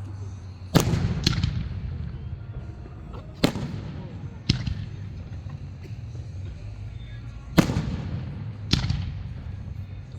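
Aerial fireworks shells bursting, six sharp booms in pairs a second or so apart, each trailing off in a rolling echo.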